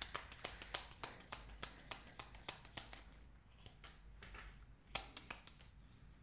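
Tarot deck being shuffled by hand: a run of crisp card flicks and slaps, quick and close together for the first three seconds, then a few more about five seconds in.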